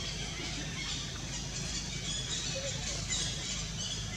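Steady outdoor background: a constant low hum with faint, scattered high-pitched chirps.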